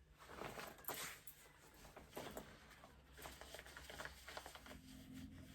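Faint rustling and crinkling of faux leather pants being handled, a string of soft, irregular scrapes and clicks.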